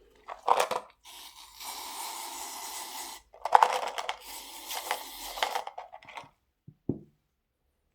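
Rustling, crinkling handling noise in two stretches of about two seconds each, with small sharp clicks among them, then a single knock about a second before the end.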